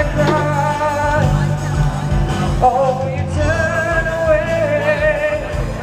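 Music with a singer: held, wavering sung notes over a steady bass line and beat.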